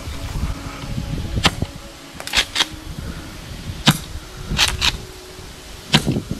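Golden Eagle 8877RW gas airsoft pump shotgun (a Remington 870 replica) shooting: three sharp shots about two seconds apart, each firing six BBs, with the quick double clack of the pump racked back and forward between them.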